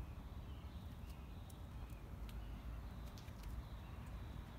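Faint outdoor background: a steady low rumble with a scattering of short, high ticks.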